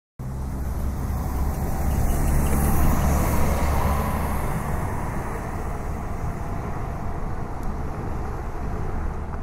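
Road traffic ambience: a steady low rumble of vehicles with a faint hiss over it. It swells a little around three seconds in, and starts and cuts off abruptly.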